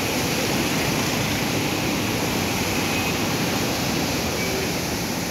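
Steady rush of water discharging through a river barrage's spillway gates.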